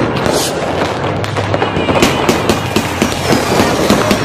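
Fireworks and firecrackers going off, a dense run of sharp bangs and crackles close together.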